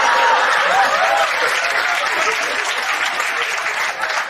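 Stand-up comedy audience applauding in response to a punchline, with a few voices calling out in the first second or so; the clapping is loudest at first and slowly dies down.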